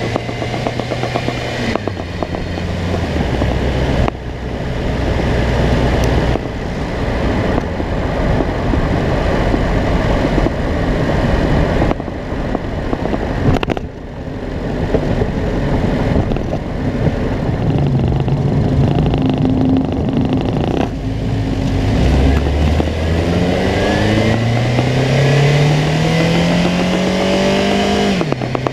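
2006 Honda CR-V's four-cylinder engine running, its pitch climbing steadily over the last several seconds as it is revved, then falling back suddenly. The car shakes at idle and under acceleration, which is put down to a bad engine mount.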